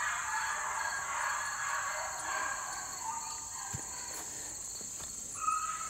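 Steady high-pitched drone of an insect chorus in woodland, with fainter mid-pitched calls coming and going underneath and a single soft knock a little before four seconds in.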